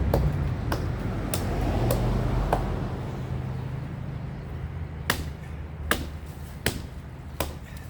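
A low idling engine rumble that slowly fades, with sharp clicks at a fairly even pace, about one every three-quarters of a second.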